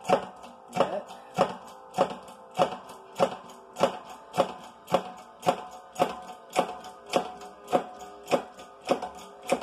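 Hydraulic shop press being pumped in steady strokes to push a failed front wheel bearing out of a Scion xA steering knuckle. Each stroke gives a sharp metallic click with a short ring, about every 0.6 s.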